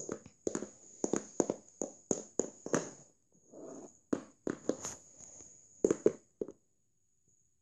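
Plastic toy horse's hooves tapped on a wooden floor to act out galloping: a run of uneven taps, a few a second, that stops about six and a half seconds in.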